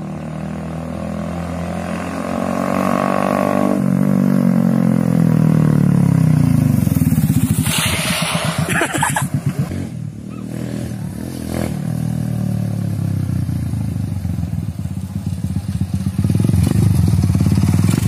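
Motorcycle engine running while riding, rising in pitch over the first few seconds and then easing off, with a rush of wind noise about eight seconds in. Near the end the engine settles into a rhythmic idle as the bike stops.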